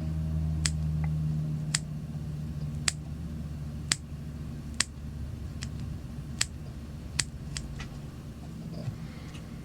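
Scissors snipping through a fly's deer-hair collar: about ten short, sharp snips, roughly one a second, over a low steady hum.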